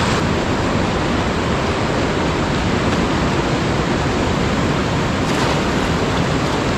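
Fast, muddy mountain river rushing over rocks at the bank: a steady, loud wash of white-water noise, with a short splash about five seconds in.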